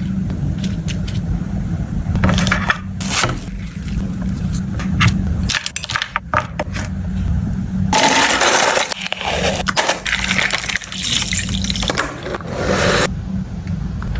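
Slime being squished and stretched by hand: wet, sticky clicks and squelches, thickening into a denser squelching stretch about eight seconds in.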